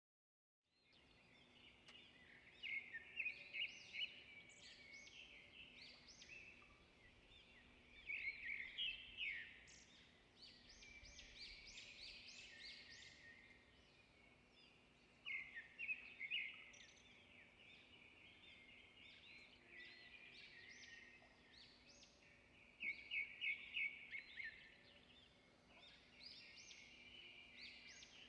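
Small birds chirping and trilling throughout, with four louder bursts of rapid chirps several seconds apart, over a faint steady hum.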